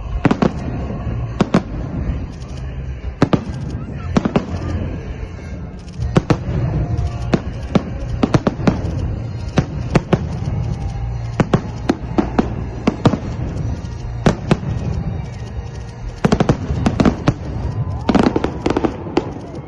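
Fireworks salute: aerial shells bursting in a long string of sharp bangs at irregular intervals, over a steady low rumble, with a quick cluster of bangs near the end.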